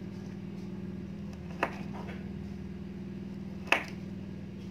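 Kitchen knife slicing through a chilled, firm date-and-nut roll: the blade clicks sharply against the plastic-covered table twice, about two seconds apart, as each slice is cut through. A steady low hum runs underneath.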